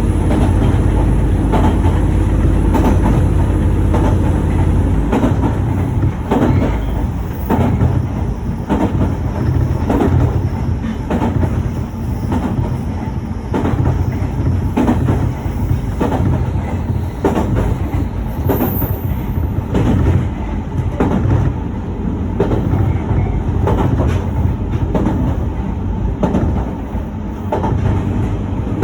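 Passenger train running along the track, heard from aboard: a steady low rumble, with the wheels clacking over rail joints about once a second from about five seconds in.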